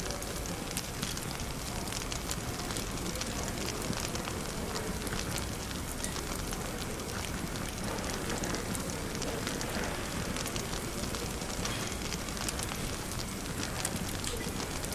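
Wood fire crackling with frequent sharp pops, over a steady low murmur of cafe chatter.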